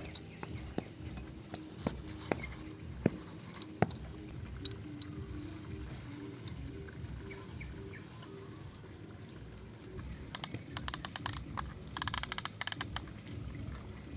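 Plastic toy crawler crane handled and moved over sandy dirt: a few sharp plastic taps in the first few seconds, then a burst of rapid clicking from about ten seconds in that stops just before the end.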